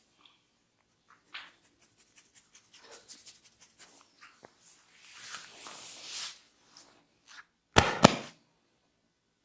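Hands rubbing and brushing over skin and hair during a massage, then two loud, sharp cracks in quick succession near the end.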